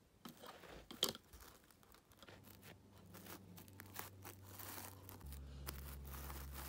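Faint rustling and light taps of plastic toy horse and figure models being walked by hand over an artificial-grass mat, with one sharper tap about a second in. A low steady hum comes in about two seconds in and grows louder a little after five seconds.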